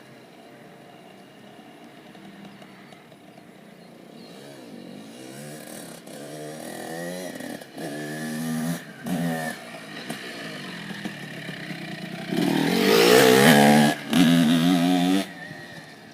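Small dirt bike engine running and revving up and down as it rides about, faint at first and growing louder, loudest for a few seconds near the end.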